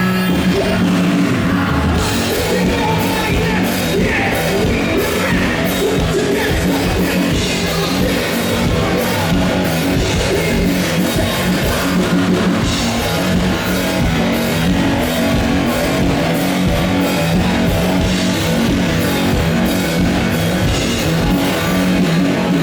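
Live rock band playing loud through a festival PA: a drum kit comes in about two seconds in with a steady driving beat, over heavy guitar and bass.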